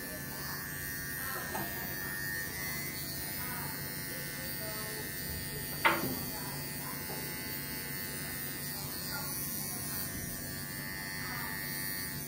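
Cordless dog clippers buzzing steadily while trimming a Scottish terrier's ears and head. About six seconds in there is one sharp click.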